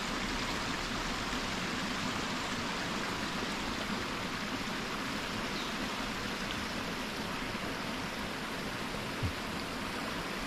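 Shallow creek water running steadily over a concrete ford and down into the stream bed: an even, unbroken rush of flowing water.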